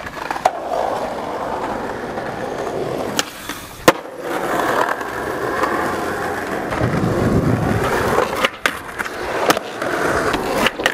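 Skateboard wheels rolling over rough pavement with a continuous gritty rumble, broken by about six sharp clacks of the board hitting the ground, the loudest about four seconds in.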